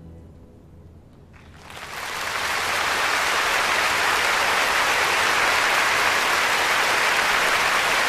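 The orchestra's last chord fading out, then a large audience starting to applaud about a second and a half in, swelling to steady applause.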